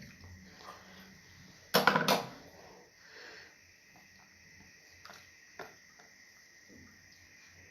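Close-up eating sounds of fufu and stew: a short loud clatter of two quick knocks about two seconds in, then soft mouth sounds with a few small clicks.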